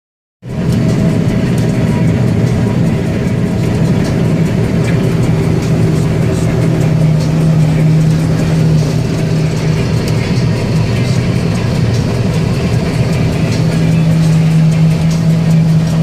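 Combine harvester running steadily while cutting wheat, heard from inside its cab: a loud, even machine drone with a strong low hum, starting suddenly about half a second in.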